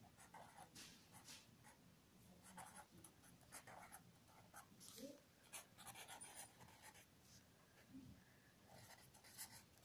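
Marker pen writing on ruled notebook paper: faint, irregular scratching strokes as letters and symbols are written.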